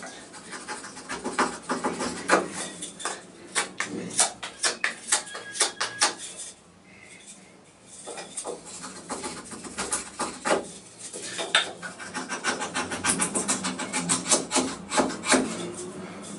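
Folding knife blade shaving a block of wood in quick runs of short scraping cuts, with a pause of about a second and a half near the middle.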